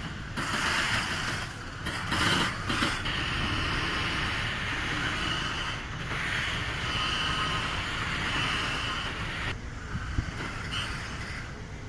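Harbour lock gates opening: a steady mechanical noise from the gate machinery with creaks, thinning out near the end.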